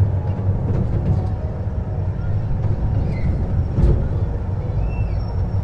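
A small farm-park ride-on train running steadily, heard from on board: a continuous low engine rumble with faint scattered clicks.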